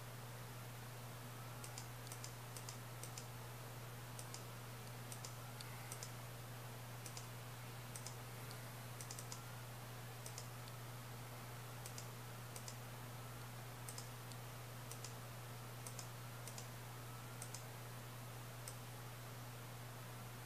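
Computer mouse buttons clicking, irregular and often in quick pairs, as layers and tools are selected in a painting program. A steady low hum runs underneath.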